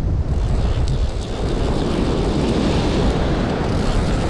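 Strong wind buffeting the microphone, a steady low rumble, over the hiss of ocean surf washing against a rocky shore.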